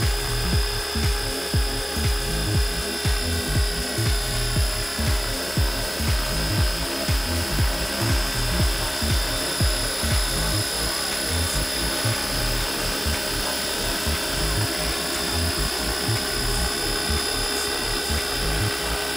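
Radio-controlled scale Huey helicopter hovering close overhead: the steady high whine of its drive over a low, uneven buffeting of the rotor, which is stronger in the first half and evens out later.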